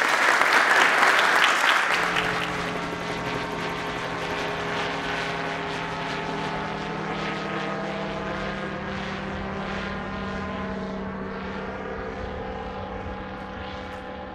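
Applause dies away over the first two seconds. Then a propeller aircraft engine drones steadily, with a constant pitch and a stack of even overtones.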